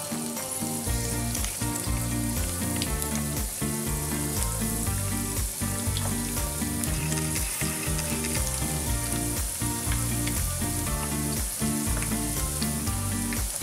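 Methi muthia (fenugreek-leaf and rice-flour dumplings) sizzling steadily as they shallow-fry in hot oil in a frying pan, with background music underneath.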